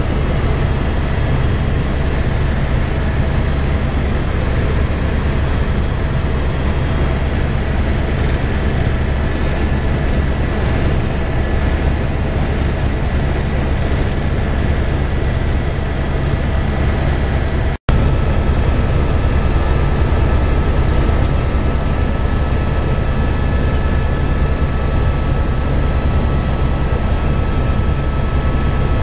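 Helicopter in flight: a loud, steady rotor and engine drone with a heavy low rumble and faint steady whine tones. It drops out for an instant about two-thirds of the way through and carries on with slightly different tones.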